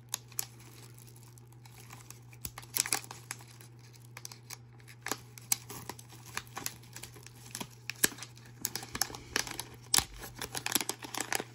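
Small plastic packet being picked at and torn open by hand, crinkling in short irregular crackles that come faster in the last few seconds.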